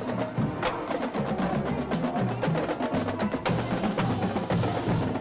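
Marching band playing: snare and bass drums beating with many sharp strikes, under low brass notes from sousaphones.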